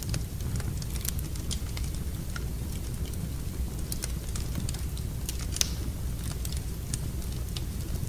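Wood fire crackling in a fireplace: scattered sharp pops and snaps over a steady low rumble, with one louder pop a little past halfway.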